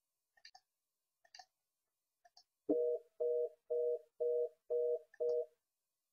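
Three faint keypad clicks as 630 is dialed on a Cisco IP Communicator softphone, then its fast busy (reorder) tone, six short beeps of two blended low tones at about two a second: the call is refused because the phone's 'local' calling search space cannot reach the manager's partition.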